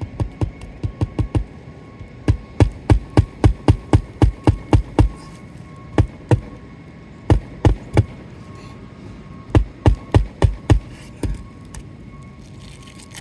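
Hammer strikes driving roofing nails into asphalt shingles: runs of quick sharp knocks, about four a second, broken by short pauses, with a few single and double strikes between the runs.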